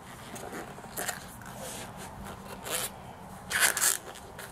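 A rubber bicycle inner tube being stretched and worked over a shovel handle: a few short rubbing, scraping rustles, the loudest near the end.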